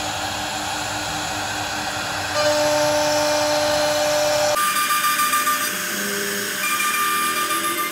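CNC router spindle running with a steady whine as the bit cuts grooves into a wooden door panel. About four and a half seconds in, the sound changes abruptly, losing its low end, and turns thinner with shifting tones and a pulsing level.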